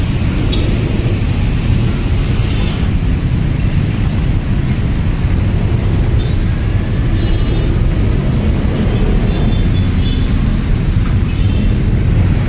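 Steady rumble of road traffic: cars and motorcycles running, waiting at a railway level crossing.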